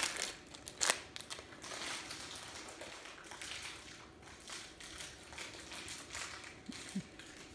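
Faint rustling and handling of small plastic LEGO pieces and their packaging, with one sharp click about a second in and a few small ticks after.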